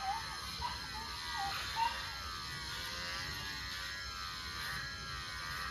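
Electric pet hair clippers running with a steady buzz that wavers in pitch as the blades work through a dog's coat.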